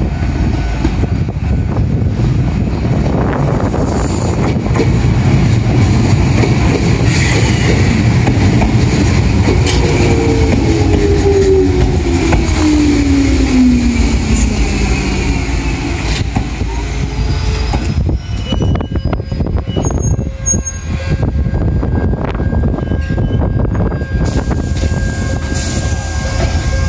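Enshu Railway 1000-series electric train, set 1002F, running in close by and slowing to a stop: a loud rumble of wheels on rail with a whine that falls in pitch as it slows, then quieter with scattered clicks and squeals as it halts.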